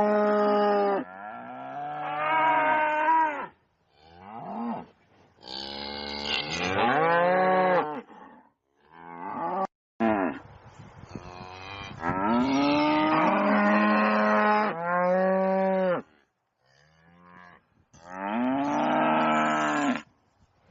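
Cattle mooing: about half a dozen long, loud moos one after another, some bending up and down in pitch, with short pauses between them.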